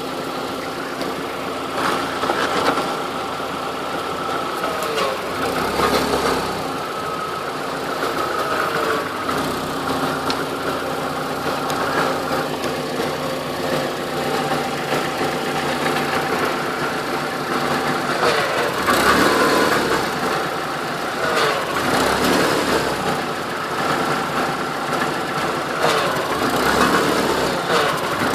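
The 1.4 8-valve four-cylinder petrol engine (AEX) of a 1997 VW Polo 6N is running, with a tinny metallic rattle coming and going in several bursts. The owner traces the rattle to the catalytic converter, which rattles when the car vibrates.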